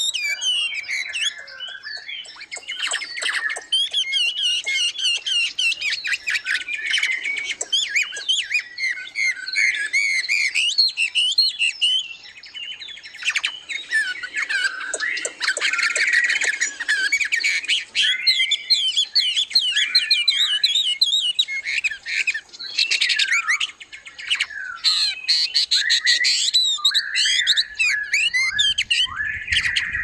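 Many small captive songbirds in an aviary chirping and singing together, a dense overlapping chorus of quick high-pitched calls with brief lulls.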